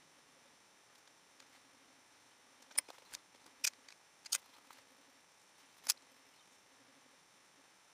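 Quiet room tone with a handful of short, light clicks and taps in the middle few seconds, from handling watercolour painting gear: brush, palette and paper.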